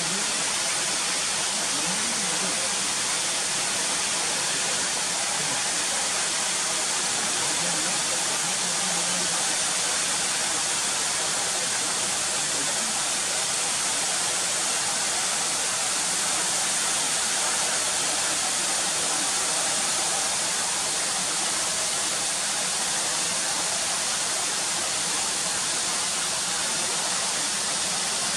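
A tall waterfall, about 98 m high, plunging onto rocks and into a pool: a steady, unbroken hissing rush of falling water.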